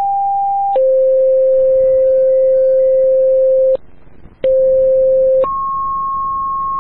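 Fire dispatch radio paging tones: a one-second higher tone that switches to a lower tone held for about three seconds, a short break, then a one-second low tone that switches to a higher tone held for about three seconds. These are two-tone sequential alert tones that page fire stations ahead of the dispatcher's working still alarm announcement.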